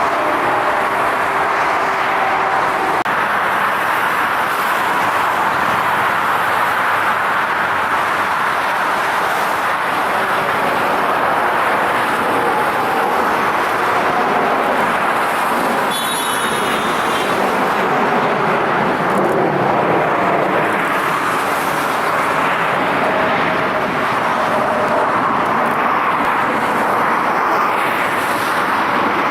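Steady rushing noise of jet aircraft engines, holding an even level with no rise or fall, and a brief faint high chirp about halfway through.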